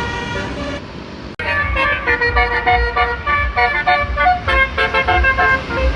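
Indonesian bus 'telolet' musical air horn playing a quick tune of short stepped notes. The sound cuts off abruptly about a second and a half in, and a busier run of telolet horn notes follows over a low rumble.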